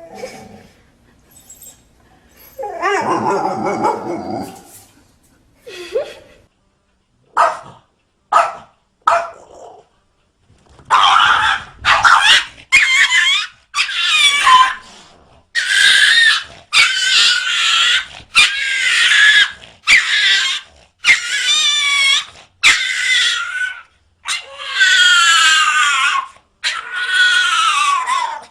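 A dog vocalising: a lower call, then a few short yips, then a long run of loud, high, wavering howls or whines, about one a second.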